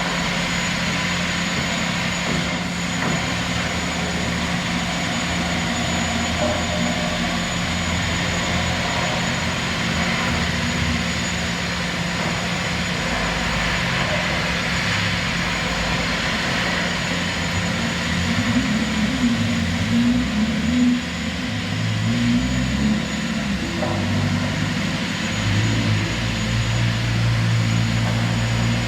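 Metro train running, a steady rumble and hiss with a constant hum and a thin high tone. In the second half, low motor tones step up and down in pitch.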